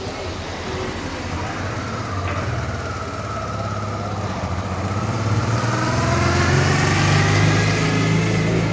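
A motor vehicle's engine running, rising in pitch and getting louder over the second half.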